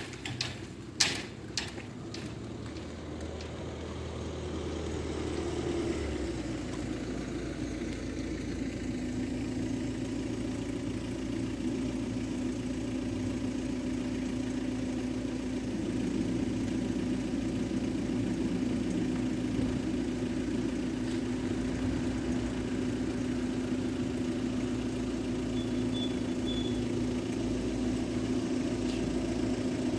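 Two sharp clunks in the first second or so as the lowered level-crossing barriers come to rest. Then a heavy diesel engine runs steadily, growing louder for about fifteen seconds and then holding: the locomotive of an approaching freight train.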